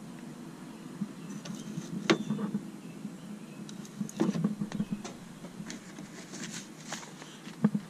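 A few light plastic clicks and taps as the spring-loaded cover of a pickup bed's 120-volt outlet is flipped open and let snap shut, over a low steady background hum.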